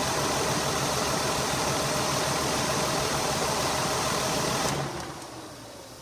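Ford 3.0 Duratec V6 idling steadily, running rough on a misfire: one cylinder gets no spark because of a bad coil pack. It is switched off a little under five seconds in, and the sound dies away with a falling tone as the engine spins down.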